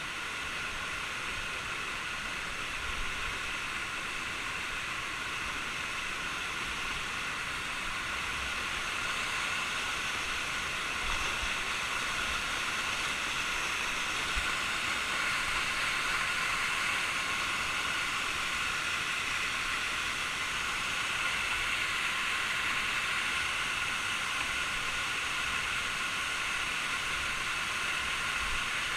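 Waterfall water pouring down in a steady rushing hiss, growing a little louder about ten seconds in.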